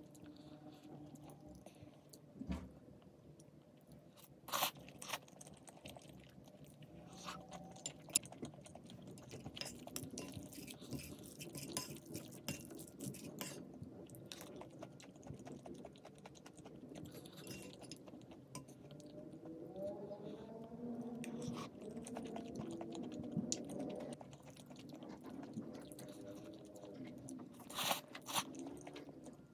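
A person chewing and biting food close to the microphone, with crunchy bites and a few sharp clicks.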